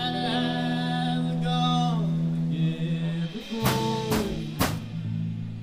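Live band music: a singer holds a long sung line over steady accompaniment, then three sharp drum hits about half a second apart.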